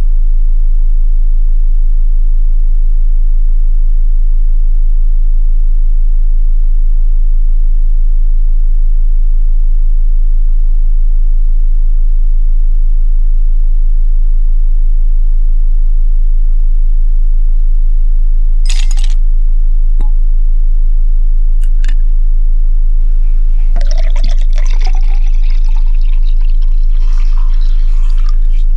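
A loud, steady deep hum throughout, with a few short clicks and clinks around two-thirds of the way in. For the last five seconds, liquor is poured from a bottle into a glass tumbler.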